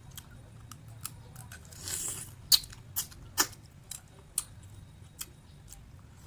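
Sun-dried clams being handled and eaten: a short rustle about two seconds in, then a few sharp clicks and cracks spaced about half a second to a second apart.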